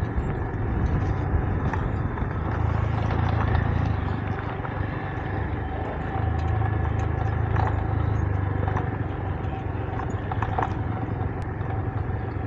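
A 125 cc single-cylinder motorcycle engine running at low revs on a rough gravel track, its note swelling twice as the throttle opens, with scattered ticks of stones under the tyres.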